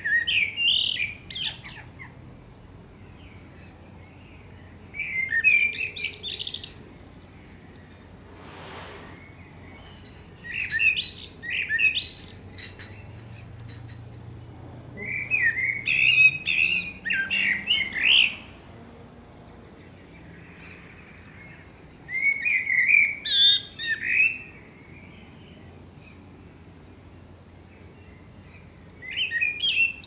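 Male Eurasian blackbird singing: about six song phrases a few seconds apart, each opening with lower whistled notes and ending in higher, thinner twittering.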